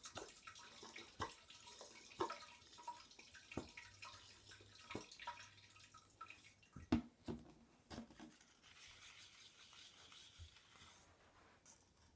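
Faint clicks and knocks of a plastic toy bottle being handled and pressed against a Baby Alive doll's mouth while orange juice is fed in, with small wet liquid sounds. The loudest knock comes about seven seconds in, and a soft hiss follows for a couple of seconds.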